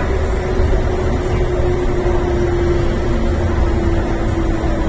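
MTR East Rail Line R-Train, a Hyundai Rotem electric multiple unit, running, heard from inside a passenger car. A steady low rumble of running noise carries a whine that sinks slowly in pitch.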